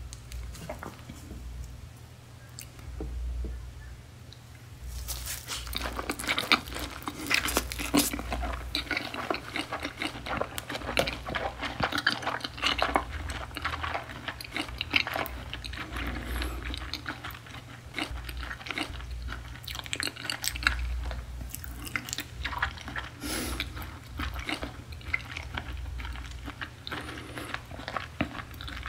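Close-miked mouth sounds of a person chewing beef tartare and sea urchin nigiri: fairly quiet at first, then a dense run of small clicks from about five seconds in as the chewing goes on.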